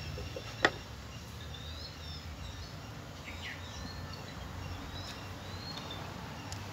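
Birds chirping over a steady low outdoor rumble, with one sharp knock about half a second in as wooden parts are set onto a beehive box.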